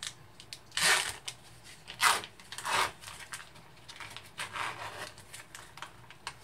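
Cellophane film seal being peeled off a plastic tofu tub, crinkling and tearing in about four short pulls, the loudest about one and two seconds in.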